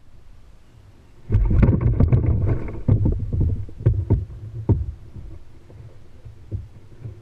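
A rapid burst of knocks and thumps against a plastic kayak hull, starting about a second in and lasting roughly three and a half seconds, followed by a few scattered knocks.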